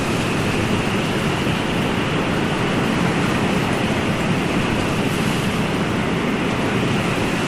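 Ocean surf: a steady, even rush of waves with no single breaker standing out.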